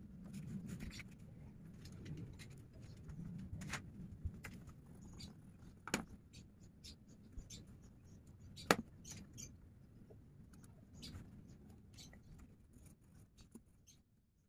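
Faber-Castell colored pencil scratching and tapping on paper in short, faint strokes, with sharper clicks about six seconds in and near nine seconds, over a low hum.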